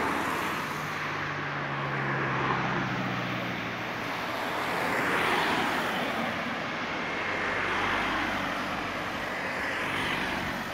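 Cars driving past one after another, engine and tyre noise swelling as each one passes and fading away, with the closest pass about halfway through.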